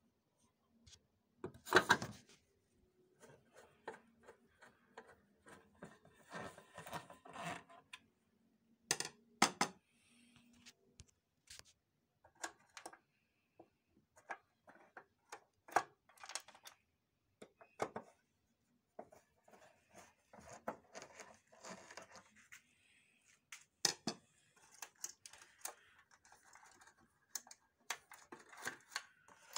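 Hands handling the plastic panels and cables of a copier's scanner unit: scattered clicks and knocks with rustling between them, the loudest knocks about two seconds in and again around nine seconds.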